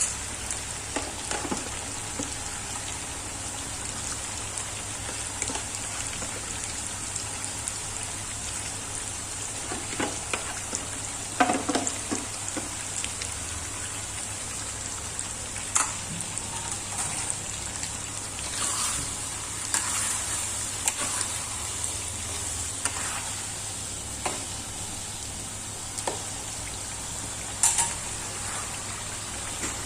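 Chicken frying in a pan with a steady sizzle, and a spatula stirring it and knocking against the pan every few seconds.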